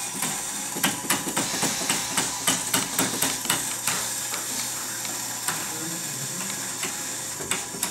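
Small line-following robot built from Merkur metal kit parts running along its track: irregular clicking and rattling, several clicks a second, over a steady hiss.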